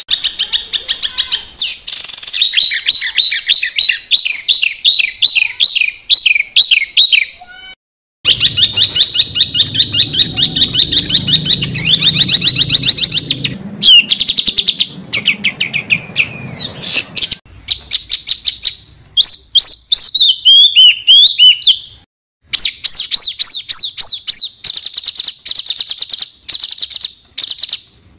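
Songbird song in dense rapid-fire bursts ('tembakan rapat'): fast trills and long strings of sharp repeated high notes. There are short breaks about 8 and 22 seconds in.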